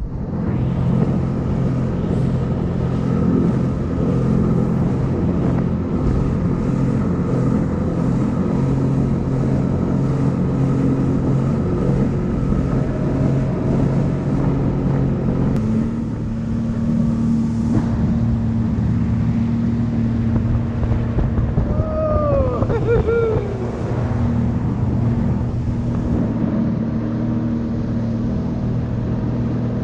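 Personal watercraft engine running steadily under way, with wind and water noise. The engine note shifts slightly about halfway through.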